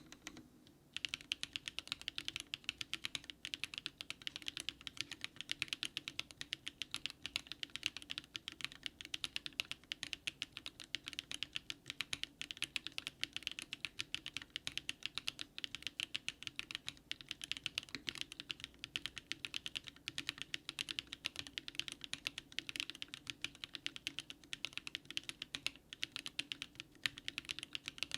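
Mechanical keyboard typing test on a DARING RUN DR-70F fitted with SW X HMX Catmint switches: a fast, continuous stream of keystroke clacks that starts about a second in after a brief pause.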